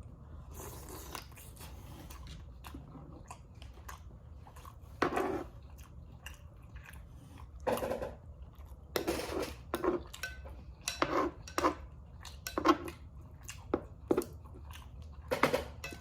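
Close-miked eating: chewing, biting and lip-smacking on sausage, rice and cucumber, with about a dozen irregular short louder bursts over a low steady hum.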